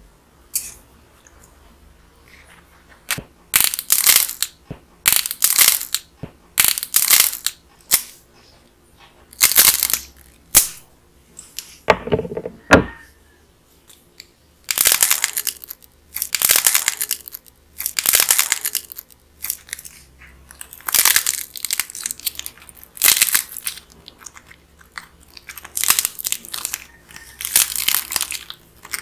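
Dried bread-shaped clay being squeezed and torn apart by hand, its hard crust cracking and crunching in repeated crackly bursts with short pauses between.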